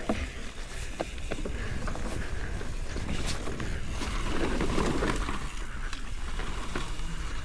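Wind rumbling on the microphone outdoors, with scattered light clicks and a brief swell of noise about halfway through.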